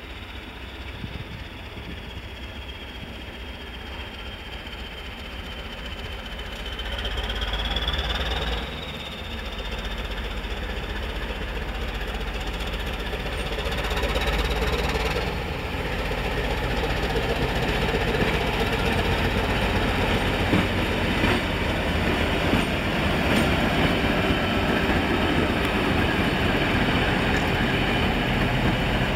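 Diesel engines of two coupled shunting locomotives, a CP 1400-class and a CP 1150-class, running under power as they pull away and draw near, growing steadily louder. A thin high whine rises in pitch twice, about a quarter and about halfway through.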